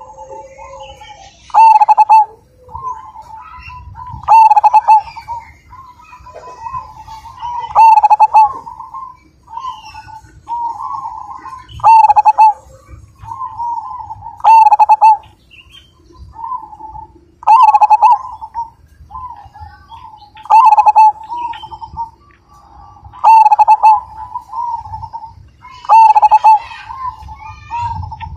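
Zebra dove (perkutut) singing its cooing song, a loud full phrase about every three seconds with softer coos between.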